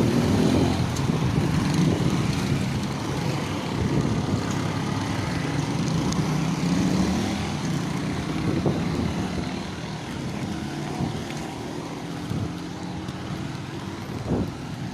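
Motor vehicle engine running with road noise, its pitch rising and falling gently. It is louder for the first several seconds and eases off in the second half.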